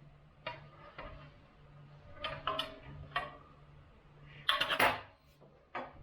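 Small hard parts clicking, clinking and knocking as they are handled: the optical shaft and pulley of an xTool D1 laser engraver being fitted during assembly. The loudest is a short rattle of clinks about four and a half seconds in, with a few lighter clicks before and after.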